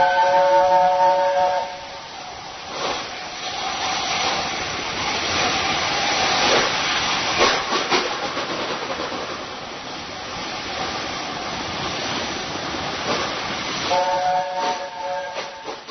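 LNER A4 Pacific steam locomotive sound: its chime whistle blows for under two seconds at the start and again briefly near the end. In between there is a steady hiss of steam and running noise with a few sharp clicks.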